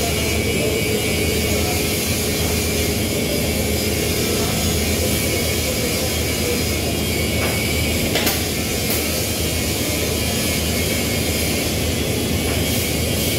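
Steady mechanical roar, like a large fan or engine running without letup, with a sharp click about eight seconds in.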